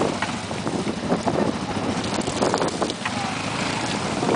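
A quad bike's engine running, with wind buffeting the microphone.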